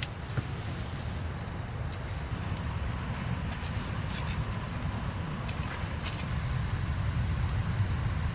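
A steady, high-pitched insect drone sets in a couple of seconds in, over a constant low background rumble.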